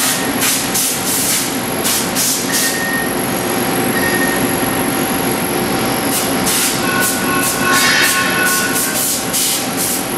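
Machine tool running steadily while cutting metal, turning square stock round, with repeated short hissy scraping bursts from the cut and a brief thin whine from the tool about seven to nine seconds in.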